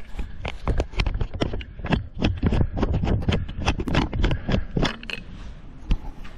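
A quick run of sharp clicks and knocks, several a second, thinning out about five seconds in.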